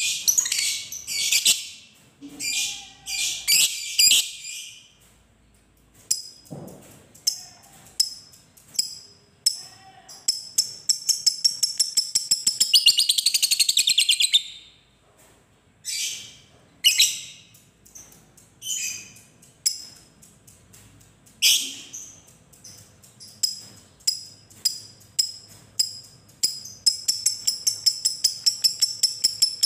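Lovebird calling: sharp, shrill chirps, and twice a fast rattling trill lasting several seconds, the long chatter ("ngekek") that lovebird keepers prize. The first trill comes about ten seconds in and rises and falls in pitch, and the second comes near the end.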